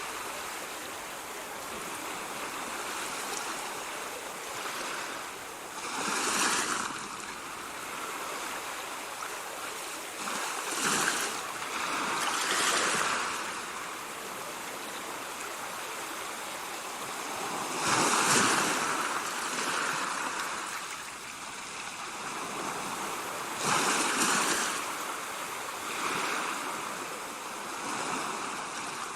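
Ocean waves breaking and washing in, a steady hiss of surf that swells louder every few seconds as each wave comes in.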